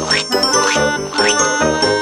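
Upbeat children's cartoon background music with bright bell-like chiming notes over a steady rhythmic beat, with three quick rising whistle-like glides laid over it in the first second and a half.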